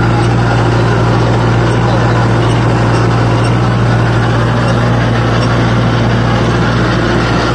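Kubota MU4501 tractor's four-cylinder diesel engine running steadily under load, pulling an 8-foot rotavator through the soil. It is a loud, even drone that holds one pitch throughout.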